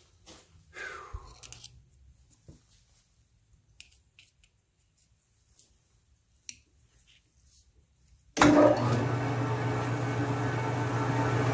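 A few light handling clicks, then about eight seconds in a metal lathe is switched on and runs steadily, a motor hum with belt and gear drive noise, its spindle turning but not yet cutting.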